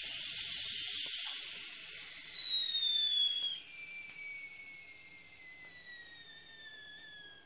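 A high ringing tone with fainter overtones above it, held steady for about two seconds, then sliding slowly down in pitch while fading away.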